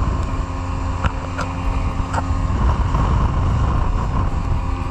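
Speedboat's outboard motor running steadily at speed while towing a banana boat, over a loud wind rumble on the microphone and water rushing past the hull.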